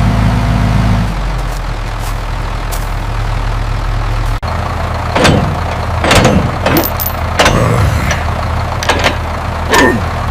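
Heavy machine's engine running steadily, its tone stepping down about a second in and cutting out sharply for an instant about four seconds in. After that the engine runs on under a series of sharp knocks and short falling sweeps.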